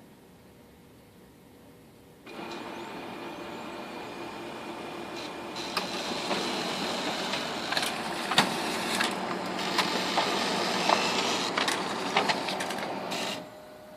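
Dell computer making a grinding noise: a rough mechanical whir with steady hum tones starts suddenly about two seconds in, grows louder with crackling scrapes, and cuts off abruptly shortly before the end.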